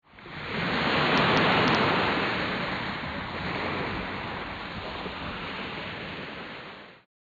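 Rushing surf-like noise that swells within the first second, eases to a steady hiss and cuts off suddenly near the end.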